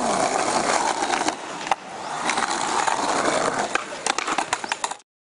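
Skateboard wheels rolling on concrete, with sharp clacks of the board hitting the ground and a quick run of clacks about four seconds in. The sound cuts off abruptly near the end.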